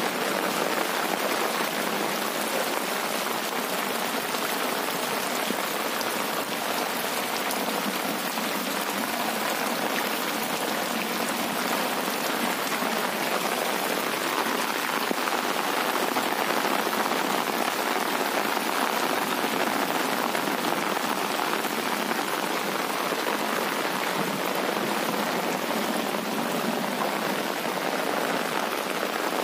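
Heavy rain pouring onto a flooded paved road, a steady, even hiss that holds without let-up.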